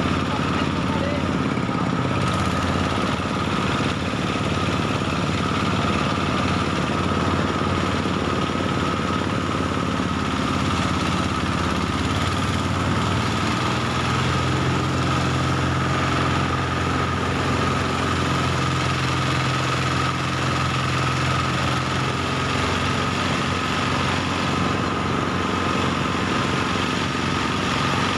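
Small engine of a portable rice thresher running steadily, driving the threshing drum as rice sheaves are fed in.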